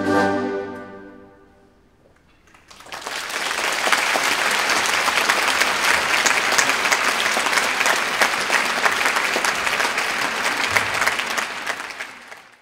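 The last chord of a Russian horn band dies away in the hall's reverberation. After a short hush, audience applause starts about three seconds in, runs steadily, and fades out at the very end.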